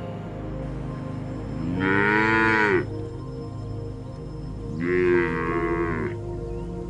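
Cattle mooing twice, each call a little over a second long, with the pitch rising then falling, over steady background music.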